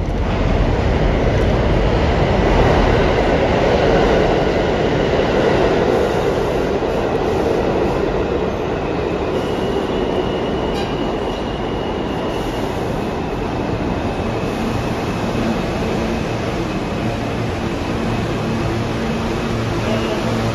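An Alstom R160A New York City subway train pulling into a station: a loud rumble of wheels on rails that is strongest in the first few seconds and then eases as it slows. A brief high-pitched wheel squeal comes about ten seconds in, and a steady low hum shows near the end.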